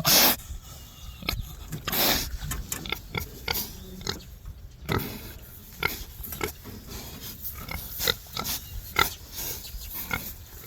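Pigs grunting in many short, irregular bursts, with a louder burst right at the start and another about two seconds in.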